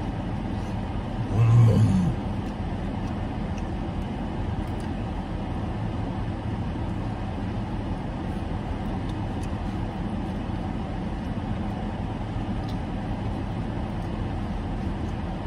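Steady rush of a parked car's air conditioning blowing on high with the engine running. A brief low sound stands out about a second and a half in.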